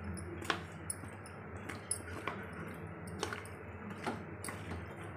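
A spoon stirring chunks of potato and cauliflower in a non-stick kadai: irregular clicks and scrapes against the pan, about eight in all, over a low steady hum.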